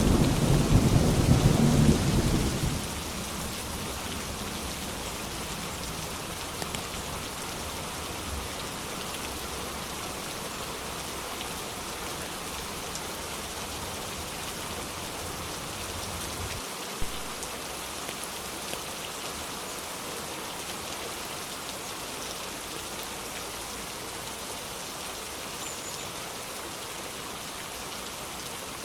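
Steady rain falling, with the last of a low thunder rumble dying away in the first few seconds.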